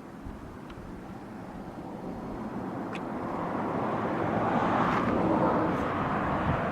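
A passing vehicle: a steady rush of noise that swells gradually to a peak about five seconds in, then begins to ease off.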